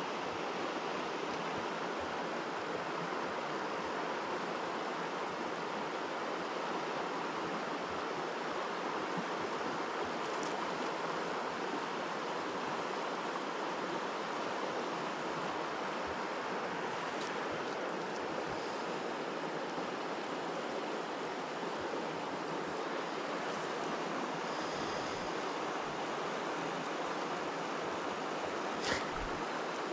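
Steady rush of a rocky mountain river flowing over boulders and small rapids, with a few faint clicks, the clearest near the end.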